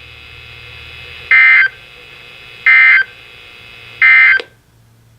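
Weather radio sending the Emergency Alert System end-of-message code after the warning: three short bursts of digital data tones about a second and a half apart, marking the end of the alert. A sharp click follows the last burst as the transmission drops.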